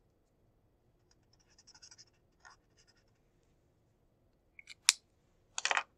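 Felt-tip highlighter scratching faintly across paper in a few short strokes, then a sharp click about five seconds in and a short rustle just before the end.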